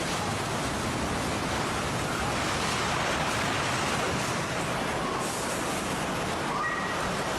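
Strong storm wind, a steady rushing noise, buffeting the microphone.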